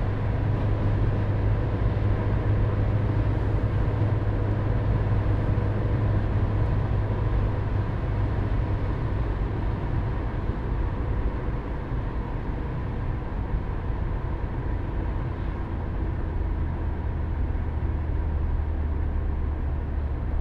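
Car driving along: steady engine and road noise under a low drone, which drops slightly in pitch about halfway through.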